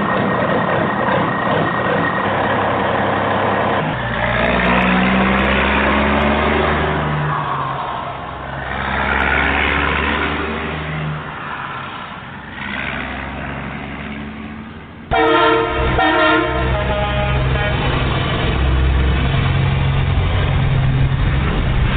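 Semi truck on the road: its diesel engine running, rising and falling several times. About two-thirds of the way through, an air horn blasts for about a second and a half.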